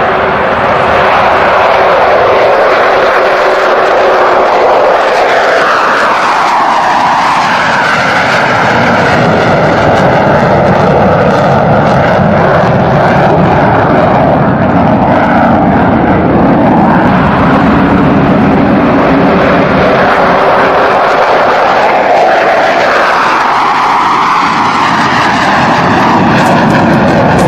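Jet engine noise from F-15 Eagle fighters taking off and flying past: loud and continuous, with the tone sweeping as the jets pass, once about five seconds in and again a few seconds before the end.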